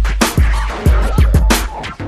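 Background music: an electronic beat with a heavy bass drum and sharp percussive hits.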